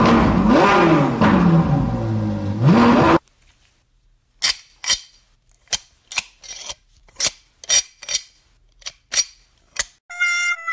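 A loud sound with a sliding pitch cuts off suddenly about three seconds in. After it come about a dozen sharp metallic clicks of pliers working the clamp on a PCV valve hose.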